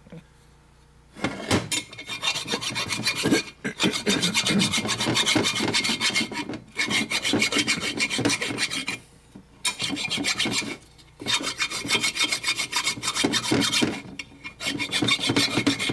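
A dull hand file rasping back and forth across the Harley 4-speed transmission case in quick strokes, flattening a face that is pulled up around over-torqued stud holes. It starts about a second in and stops briefly a few times between runs of strokes.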